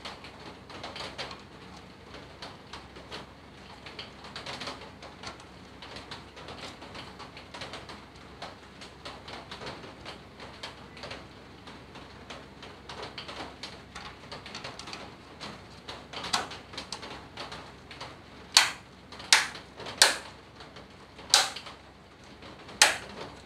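Plastic housing of a Xiaomi ultrasonic humidifier being handled: light rattling and clicking of the cover and tank, then about five sharp plastic clicks near the end.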